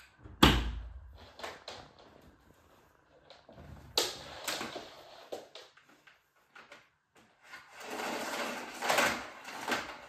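A vacuum cleaner's power cord being pulled from a wall socket and coiled by hand: a sharp knock about half a second in, scattered clicks and knocks of the plug and cord, then a longer stretch of the cord rubbing and scraping near the end. The vacuum motor is off.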